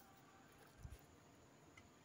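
Near silence: room tone, with one faint soft knock a little under a second in and a tiny tick near the end.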